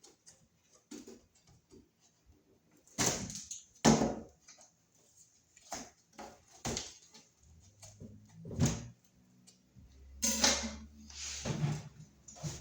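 Drywall being broken and pulled off a wall stud by hand: irregular cracks, crunches and scraping of the gypsum board, heaviest a little after three seconds and again from about ten to twelve seconds in.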